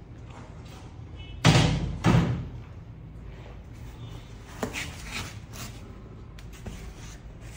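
Two loud wooden thuds about half a second apart as the plywood lid of a shipping crate is handled, then a few light knocks and rubbing as the foam packing is lifted out of the crate.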